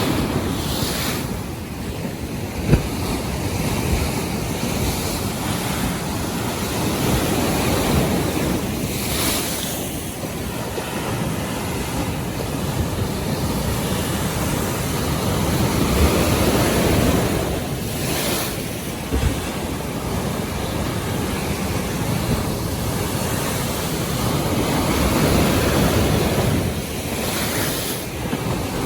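North Sea waves washing in a steady rush that swells and eases every several seconds, with wind blowing on the microphone.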